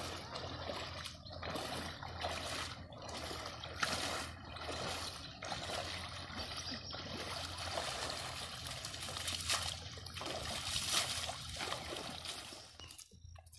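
Shallow river water splashing and sloshing in uneven surges as a person wades through it, churning it with legs and hands. It dies away near the end.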